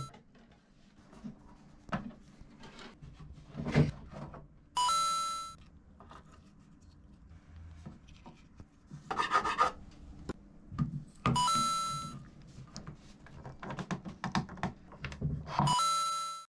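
A bright doorbell-like chime sounds three times, each under a second long and fading. Between the chimes are rubbing, scraping and small knocks as a double bass's fittings and endpin assembly are handled.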